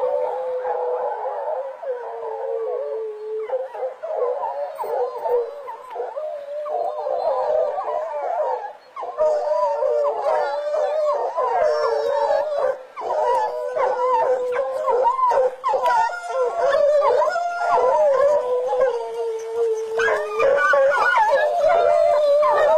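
A pack of hunting hounds in full cry: many overlapping baying voices without a break, louder from about nine seconds in.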